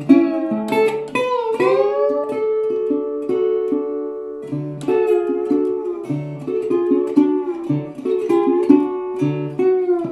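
Guitar music with plucked notes and a few sliding pitches, played over the speaker of a 1945 Westinghouse H-124 Little Jewel radio.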